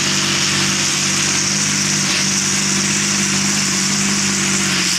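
Competition pulling tractor's engine running flat out under load, dragging the weight sled down the track: a steady, unbroken drone with a heavy hiss over it.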